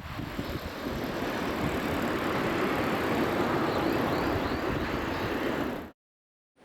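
Steady rushing outdoor ambience with no clear engine tone, with a few faint high chirps about four seconds in; it cuts off abruptly to silence near the end.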